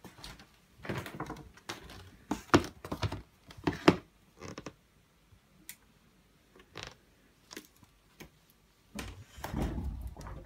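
Scattered knocks and clicks, irregular and close together for the first few seconds and then sparse, with a longer, louder stretch of noise near the end.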